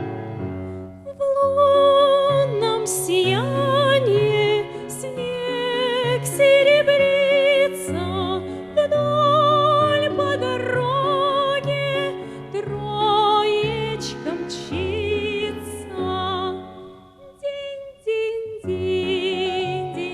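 Classically trained voice singing a Russian romance in operatic style, with marked vibrato on long held notes over an instrumental accompaniment.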